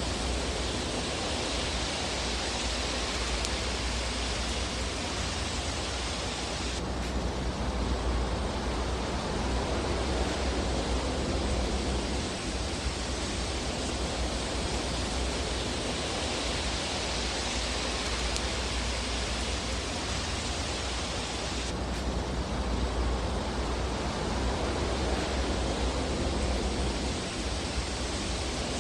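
Fireplace ambience: a steady rushing hiss of burning fire with a low rumble and no distinct crackles. The sound shifts abruptly twice, about fifteen seconds apart, like a looped recording.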